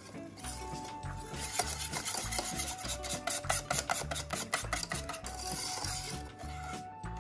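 Quick repeated scraping strokes of a kitchen utensil, several a second, over background music.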